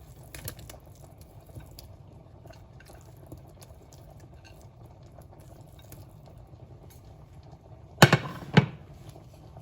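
Low bubbling of liquid cooking on the stove, with faint scattered clicks. About eight seconds in come two loud clanks, half a second apart: a utensil knocking against the pan.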